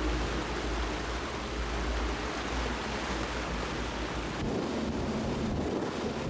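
Steady rushing noise of wind and sea water with a deep rumble underneath; about four and a half seconds in the rumble drops away, leaving a lighter rush of water from a boat's wake.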